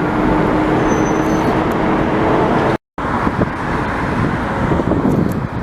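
Qatar Airways airliner's jet engines, a loud steady rumble with a faint steady hum. The sound cuts out completely for a split second about three seconds in, then carries on rougher.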